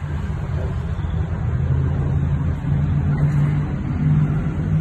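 Road traffic, with a heavy vehicle's engine humming low and steady, louder from about a second and a half in.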